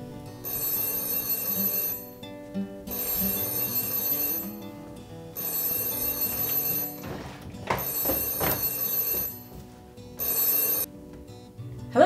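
Telephone ringing in five bursts of about a second or so each, with short pauses between them, over acoustic guitar music.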